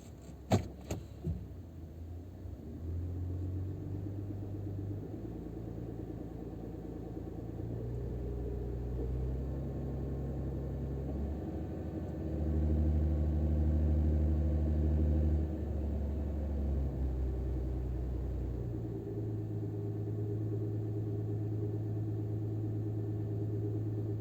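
Toyota 1MZ V6 engine running, held at a few steady speeds that step up and down, with a few sharp clicks in the first second or so. The owner reports a knock in this engine.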